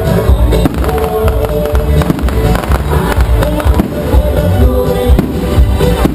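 A rapid, irregular run of loud sharp pops over music playing throughout.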